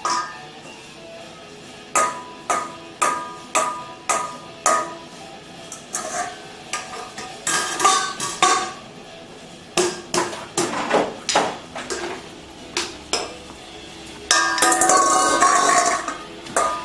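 Metal pots and pans being banged, a run of irregular knocks, each ringing briefly, with a longer, louder clatter a little before the end.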